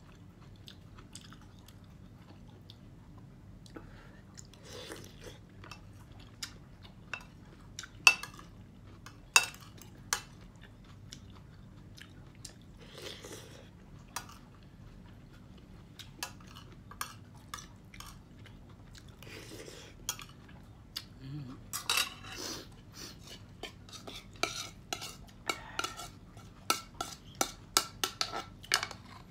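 Metal fork and spoon clinking and scraping against a ceramic plate during a meal, with chewing in between. Scattered single clinks, a few sharp ones about eight to ten seconds in, then a quick run of clinks over the last several seconds.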